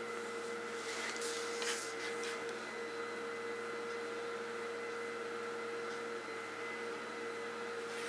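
A steady machine hum with a constant mid-pitched whine, as from a running household appliance, with a few brief soft rustles of a hand stroking a dog's head about one to two seconds in.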